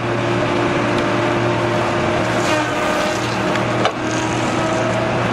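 Heavy forestry machine's diesel engine running steadily while it cuts wood, with a sharp crack about four seconds in.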